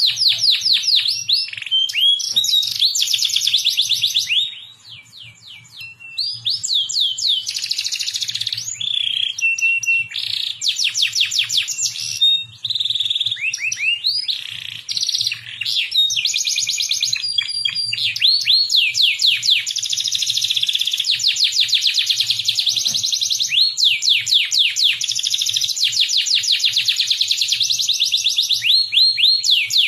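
Domestic canary singing a long, continuous song of fast repeated trills and rolls, high-pitched, with a brief softer passage about five seconds in.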